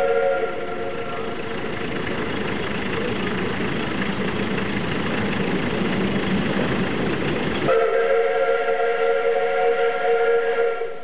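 Steam whistle of a 760 mm narrow-gauge steam locomotive blowing a chord of several steady notes. A first blast ends about half a second in. The engine's running noise grows as it approaches, and then a second whistle blast of about three seconds starts near the end and cuts off sharply.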